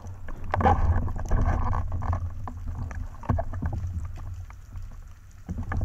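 Underwater rumble of water rushing past the camera housing as a freediver kicks up toward the surface, with scattered sharp clicks and knocks; it eases off briefly near the end.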